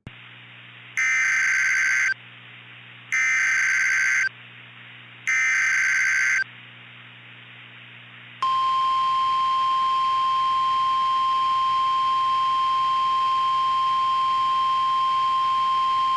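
Emergency Alert System / NOAA Weather Radio alert: three short bursts of screeching SAME data tones, each about a second long and a second apart, then a steady, single-pitch weather-radio warning tone starting about eight seconds in, with a faint hum underneath. The sequence opens a tornado warning broadcast.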